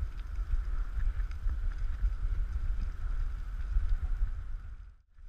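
Running noise of a dog-pulled rig on a dirt forest track: a steady low rumble of wheels and wind on the microphone, with a faint steady high hum. The sound drops out abruptly for a moment near the end.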